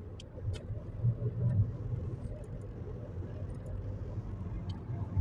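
Car cabin noise while driving: a steady low rumble of engine and tyres heard from inside the car.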